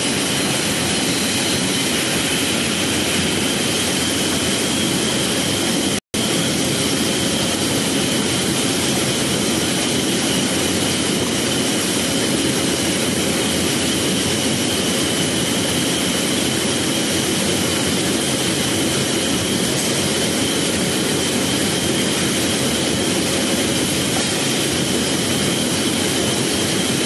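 Steady running noise of an egg boiling and peeling line's machinery, a dense hiss with a thin steady high whine over it, broken by a momentary gap about six seconds in.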